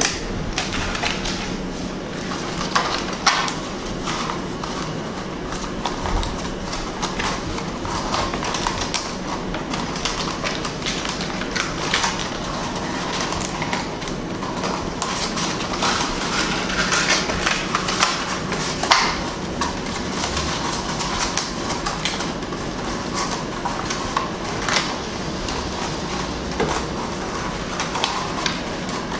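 Stiff diffuser paper rustling and crackling as hands roll it into a tube and handle it. Scattered small clicks and taps of plastic parts run through it, over a faint steady low hum.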